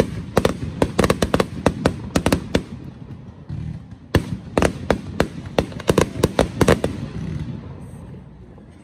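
Aerial fireworks bursting: rapid volleys of sharp bangs and pops in two dense runs, with a brief lull about three seconds in, thinning out and fading near the end.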